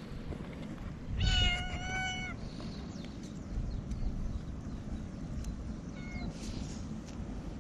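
A tortoiseshell cat meowing: one clear, drawn-out meow lasting about a second, then a short, fainter call about six seconds in.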